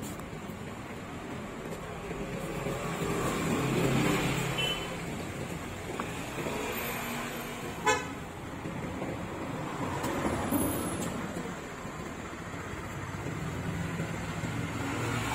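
Road traffic passing, its noise swelling and fading as vehicles go by, with a brief horn toot about four to five seconds in. A single sharp knock about eight seconds in.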